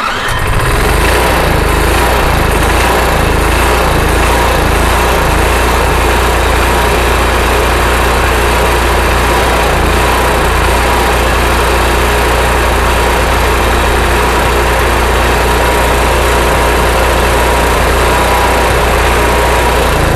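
Cummins Onan RV generator starting and running without load, its engine speed going up and down instead of holding steady. This surging is typical of a carburetor whose jets are blocked by varnish from fuel left to evaporate during months of storage.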